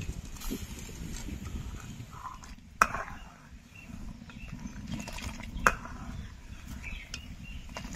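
Steel ladle stirring milk in an aluminium pan, with faint scraping clicks and two sharp knocks of the ladle against the pan, the first about three seconds in and the second near six seconds. A low steady rumble runs underneath.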